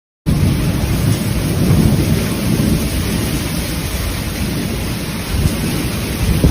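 Heavy rain in a severe thunderstorm, a steady hiss of rain over a dense low rumble, cutting in abruptly just after the start.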